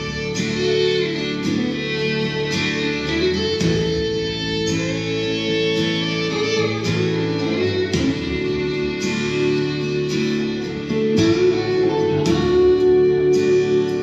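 Recorded music led by guitar, playing steadily.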